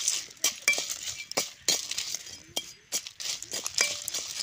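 Dried red chillies and coriander seeds tipped into an aluminium kadai to roast in a little hot oil, with a metal spoon against the pan: a quick, uneven run of sharp clinks and crackles over a light sizzling hiss.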